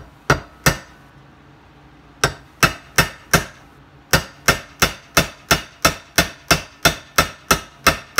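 Hammer striking a small double ferrule laid on the steel jaw of a bench vise, crimping it onto 3/64-inch snare cable. Two sharp metallic blows come first, then after a short pause four more, then a steady run of about a dozen at roughly three a second.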